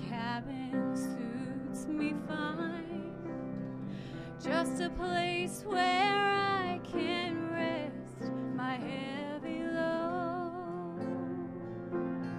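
A woman singing a slow gospel song with vibrato, accompanied by strummed acoustic guitar.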